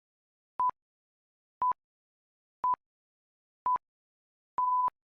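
Electronic interval-timer countdown: four short, high beeps about a second apart, then a longer beep near the end, marking the switch to the next exercise.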